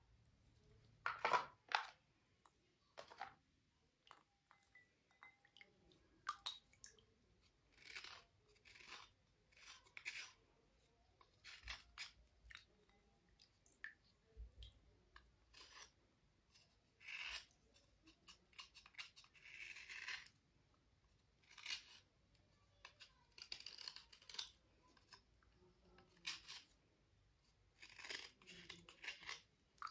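Slate cubes being scraped and rubbed clean: short, irregular scraping and rustling strokes, about one a second, the loudest pair about a second in.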